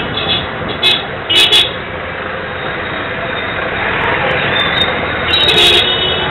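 Busy street traffic, with motorcycle, scooter and auto-rickshaw engines running close by. Short high horn toots sound about a second in, again around a second and a half, and a longer one near the end.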